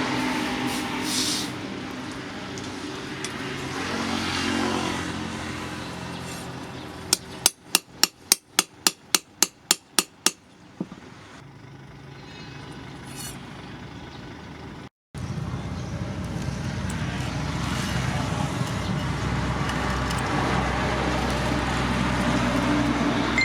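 Metalworking in a blacksmith's shop: a quick run of about a dozen hammer blows on steel, about four a second, with one more blow a moment later. Before and after them a machine runs with a steady whirring noise and a low hum.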